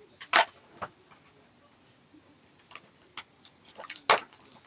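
Cardboard snack box being handled and its end flap opened: a scatter of sharp clicks and taps of card. The loudest come just after the start and about four seconds in.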